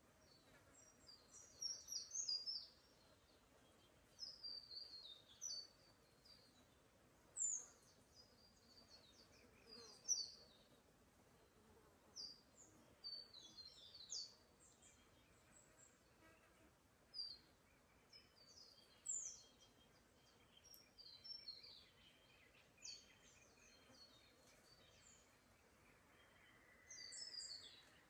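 Australian forest birds chirping and calling in short high-pitched bursts every second or two, over a faint steady hiss.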